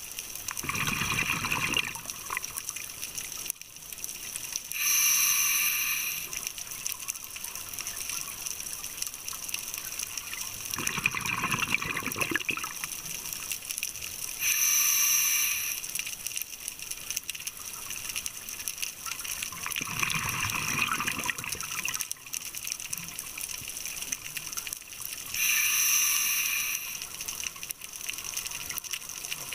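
Scuba breathing through a regulator, heard underwater: three slow breath cycles about ten seconds apart. Each cycle is a regulator hiss and a bubbling gush of exhaled air.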